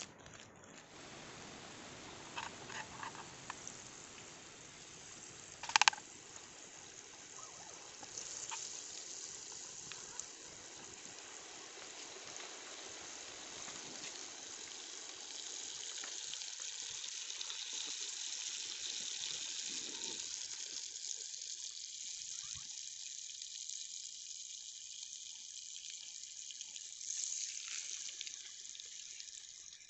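Butter sizzling in a small frying pan on a portable gas stove, a steady hiss that builds from about eight seconds in. A single sharp click about six seconds in.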